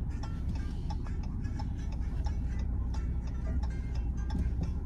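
Low rumble of a car driving slowly, heard from inside the cabin, with a steady ticking over it.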